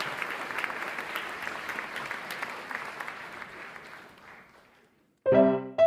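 Audience applause fading away over about four seconds, followed by a moment of silence and then a piano tune starting near the end.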